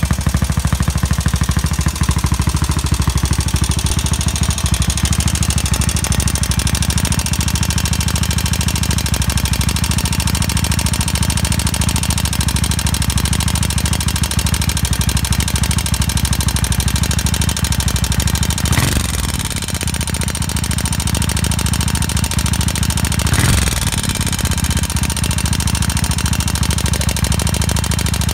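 Yamaha SR400's air-cooled single-cylinder engine running steadily at idle with an abnormal noise, which the owner calls its death throes. Twice past the middle its pitch swoops briefly.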